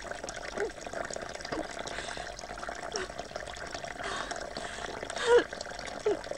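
Water running steadily, with a few short dripping plinks, the loudest about five seconds in.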